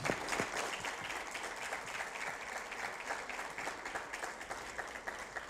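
Audience applause: many hands clapping at once in an even patter that slowly dies away near the end.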